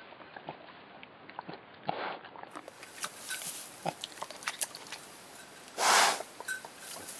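Mini pigs resting in straw: light rustling and small clicks, with one loud, short, breathy pig grunt about six seconds in.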